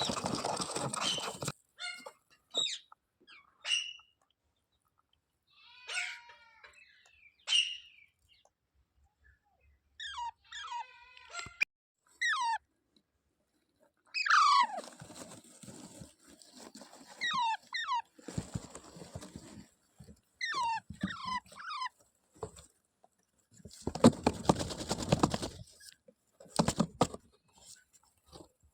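Indian ringneck parrot calling in short, scattered squawks and chirps with quick sliding pitches, broken by a few brief noisy rustling bursts.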